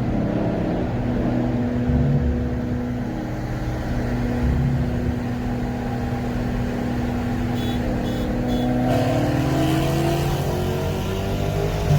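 Dodge Challenger Scat Pack's 6.4-litre 392 Hemi V8, mid muffler deleted, cruising at a steady pitch at about 50 mph. Three short high beeps sound near the end. The engine then rises in pitch as it goes to full throttle for the roll race.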